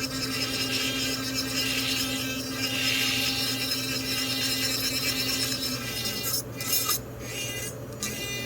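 A small power tool runs steadily with a hum and a dense hiss, cutting out briefly twice near the end.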